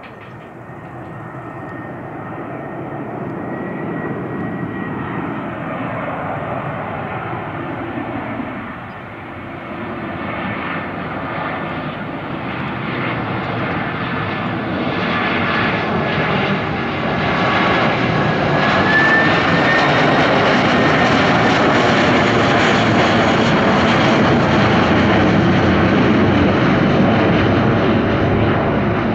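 Airbus A319 jet airliner making a low flyover with its landing gear down. The engine noise swells as it comes in, dips briefly, then grows to a loud steady rush with a high whine as it passes overhead. It begins to fade right at the end.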